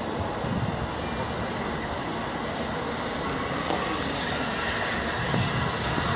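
The Flying Scotsman steam locomotive and its coaches rolling into the station, a steady noise of wheels running on the rails.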